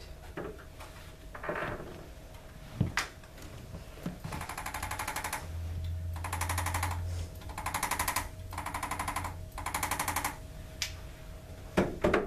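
Hand-held electric chiropractic adjusting instrument firing rapid strings of taps against the patient's spine, in four bursts of about a second each with short pauses between.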